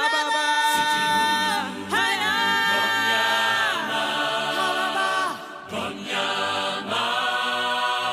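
Voices singing unaccompanied, several long held notes that slide from one pitch to the next.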